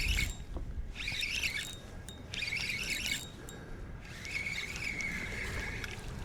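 A songbird singing four phrases in a row: three short chirpy ones, then a longer, steadier one near the end. Wind rumbles on the microphone beneath the song.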